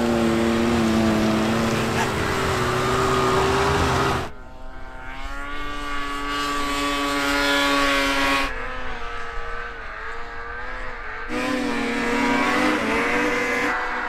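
Racing snowmobile engines whining at high speed as the machines pass one after another, the pitch drifting a little with each pass. The sound changes abruptly a few times, from one passing machine to the next.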